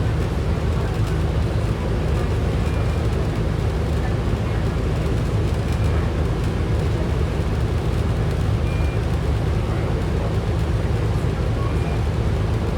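Ride inside a 2010 Orion VII NG city bus in motion: steady low engine and road rumble with a continual rattle from the bus's body and fittings.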